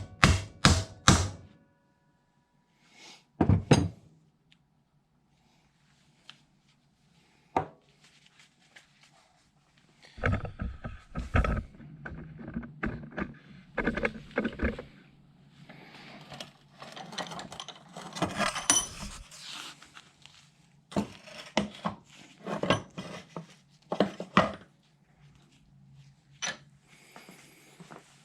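Metal-on-metal tapping as a piece of scrap metal is struck against a universal joint bearing cap to seat it down to the snap-ring groove: a quick run of sharp taps at the start and a few single knocks, then from about ten seconds in irregular clanking and scraping of metal parts and tools.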